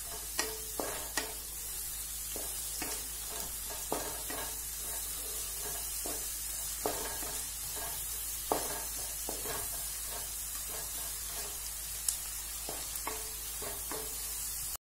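Sliced onions and tomatoes sizzling steadily in hot oil in a non-stick kadai while being sautéed down, with a wooden spatula scraping and knocking irregularly against the pan as they are stirred.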